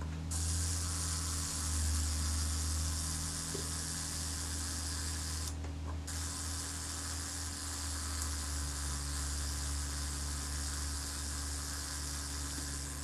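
Self-timer of a Kodak Retina IIIc's Synchro-Compur leaf shutter running down, a steady mechanical buzz from its gear-train escapement. The newly reinstalled self-timer is working properly.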